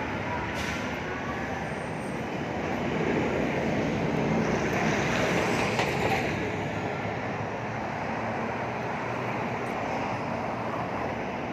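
Steady rushing noise of a passing vehicle, swelling louder for a few seconds in the middle and easing off again.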